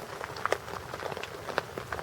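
Rain during a thunderstorm: a steady hiss of rainfall, with many separate large drops striking a surface close by at irregular intervals.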